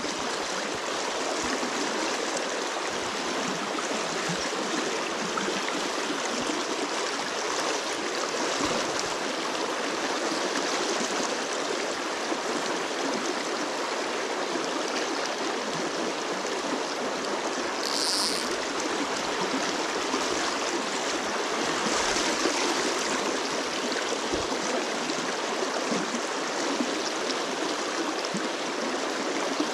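Shallow freestone stream rushing steadily over a rocky riffle, an even hiss of running water. A brief high-pitched sound about eighteen seconds in.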